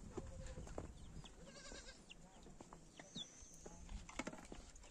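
Goat bleating faintly: a short quavering call about a second and a half in.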